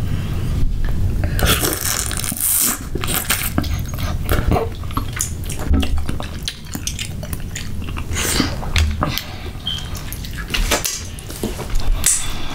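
Metal spoons clinking and scraping against a glass bowl, and fingers picking through food in sauce, with wet eating sounds close to the microphone: a string of short clicks and knocks.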